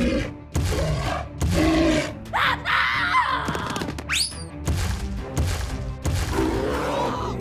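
Background music with added sound effects: several sudden thuds, and a short whistle that rises then falls about four seconds in.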